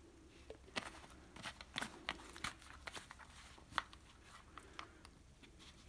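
Faint, scattered small clicks and light rustles of a gloved hand handling a plastic glue tub and moving it over a wooden board, with one slightly sharper click a little before the four-second mark.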